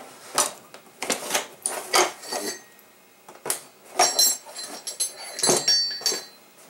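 Steel parts of a Type 56 SKS rifle clicking and clinking as the receiver cover and bolt are taken off during field stripping: a run of sharp metallic clicks and knocks, with ringing metal clatter about four seconds in and again near the end.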